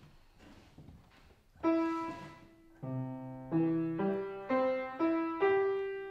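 Piano played slowly, starting about one and a half seconds in: single melody notes over low bass notes, each struck and left to ring and fade.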